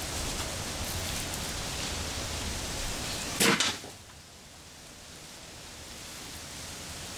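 A homemade air gun fires once, about three and a half seconds in: a sharp, loud crack doubled by a second crack a split second later, as the shot knocks the drink can off its target. A steady hiss runs beneath before the shot.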